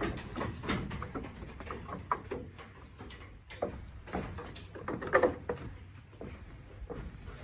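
Goats moving about in their pen: scattered knocks and shuffling, with a louder short burst about five seconds in.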